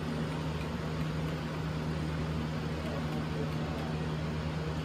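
HO scale model train rolling past: a steady hum with one low, constant tone under an even rolling hiss.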